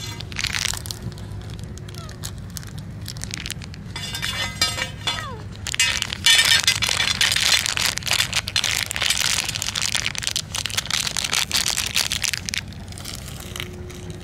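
Plastic cat-food pouch crinkling while dry food is shaken out of it into a metal dish. It starts about six seconds in and stops shortly before the end.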